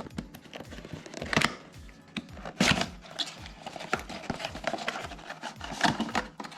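Product packaging being opened and handled by hand: irregular rustling with sharp clicks and snaps, the loudest about one and a half, nearly three and six seconds in.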